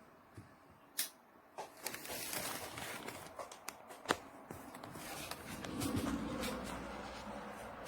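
A few sharp clicks and knocks with rustling handling noise in between; the loudest click comes about four seconds in.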